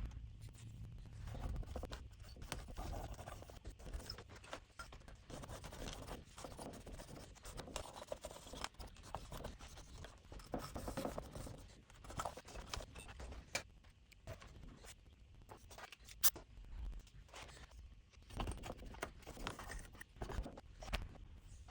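Irregular scraping and rubbing strokes as old, cleaner-softened glue is worked off, with a single sharp click about 16 seconds in.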